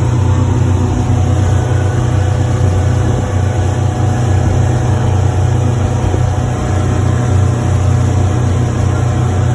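Tour boat's engine running steadily, a low, even drone heard on board.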